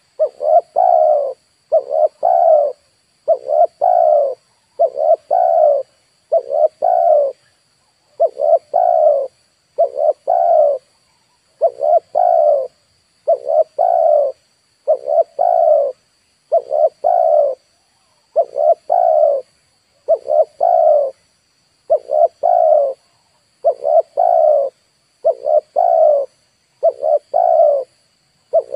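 Spotted dove (tekukur) cooing over and over, the same short coo phrase repeating about every second and a half.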